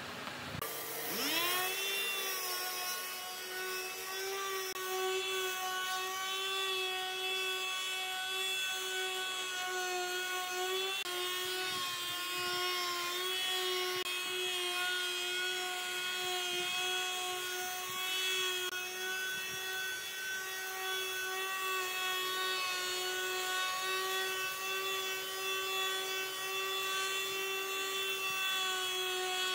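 Electric power tool motor starting about a second in, its whine rising quickly to a steady high pitch and running on with slight dips in pitch.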